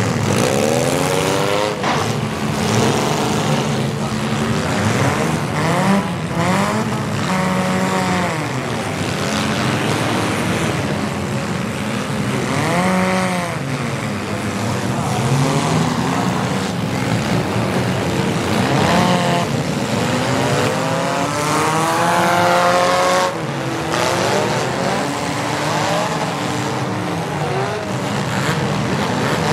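Several demolition derby mini cars' engines revving hard again and again at once, their pitches rising and falling and overlapping, with a few sharp knocks of metal hitting.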